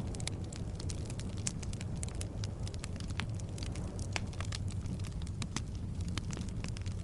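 Log fire burning in a fireplace: a steady low rumble of flame with frequent sharp crackles and pops from the wood, several a second.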